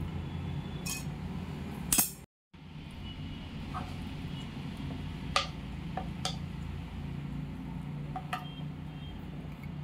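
A handful of sharp clinks from a steel spoon knocking against a pan and a stone mortar as cooked gongura (sorrel) leaves are scooped in, over a steady low hum. The loudest clink comes about two seconds in, followed by a moment where the sound cuts out completely.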